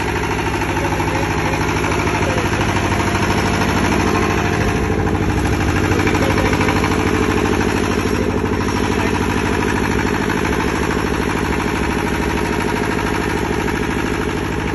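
25 kVA twin-cylinder diesel generator set running steadily at a constant pitch.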